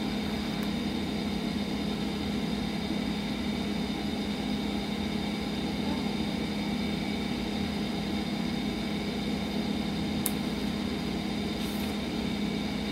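Steady low hum with a fainter high whine above it, like a running motor or fan, and a brief faint click about ten seconds in.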